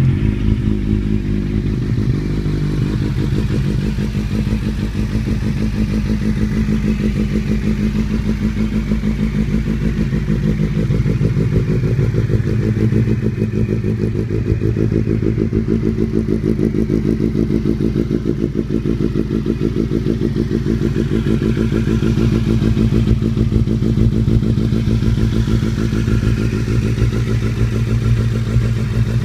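2008 Kawasaki Z750's inline-four engine idling steadily through an Akrapovic carbon slip-on exhaust.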